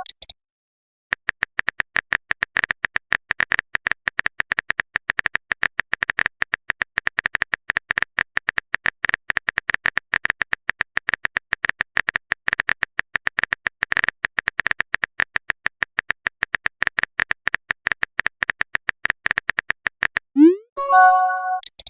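Phone-keyboard typing sound effect: a long, rapid run of short bright clicks, several a second. Near the end a message-sent notification plays, a quick rising swoop followed by a brief chime of stacked tones.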